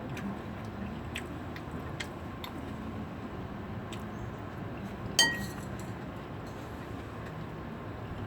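A utensil strikes a dish once with a sharp clink about five seconds in, ringing briefly, with a few faint light clicks before it over a steady low background hum.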